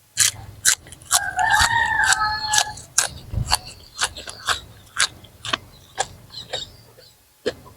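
Chewing and eating sounds: a string of sharp wet smacks and clicks, about two a second. About a second in, a rooster crows once for about a second and a half.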